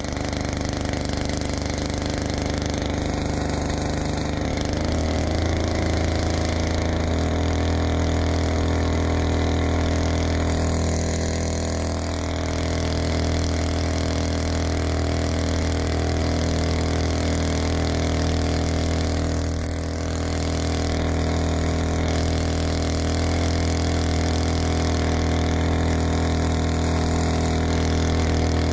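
Small boat outboard motor running steadily, heard from aboard an inflatable boat under way; its pitch climbs a few seconds in as it picks up speed, then holds even.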